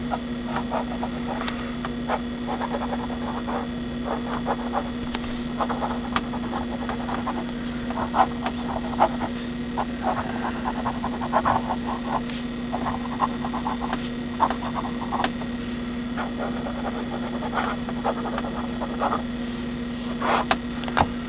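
A vintage Sheaffer Fineline fountain pen's medium nib scratching across paper in short, irregular strokes as words are handwritten. A steady low hum runs underneath.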